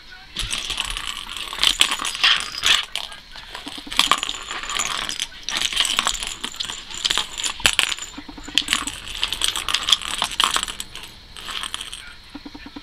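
A ball rattling and clicking around a plastic circular cat-toy track as a cat bats at it, in quick irregular rattles with a jingly edge. It starts about half a second in and dies away near the end.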